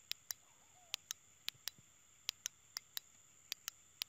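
Small sharp clicks of a handheld flashlight being worked at its switch or battery, about a dozen at uneven intervals, several in quick pairs, while the light is dim. A faint steady high tone runs underneath.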